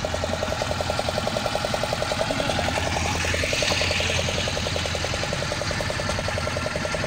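A fishing boat's engine running steadily under way, a fast, even pulsing beat over a constant low hum. A rushing hiss swells briefly about three seconds in.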